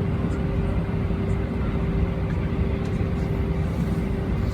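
Steady rumble of an Airbus A320's jet engines heard from inside the passenger cabin, with a steady hum running through it.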